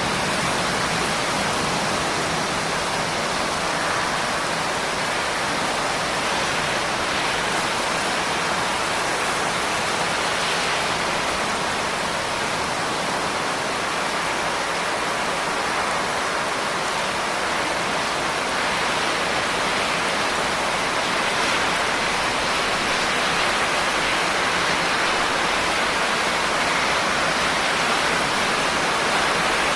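Steady heavy rain, a dense even hiss of falling water with no separate drops standing out.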